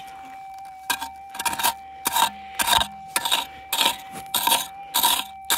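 A pick's wide, flat blade chopping and scraping into packed red clay and dirt: about nine quick strokes, a little over half a second apart, starting about a second in. A steady electronic tone from a metal detector hums underneath.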